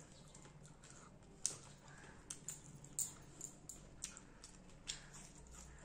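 Quiet eating sounds: chewing fried fish, with scattered sharp mouth clicks and smacks about once or twice a second.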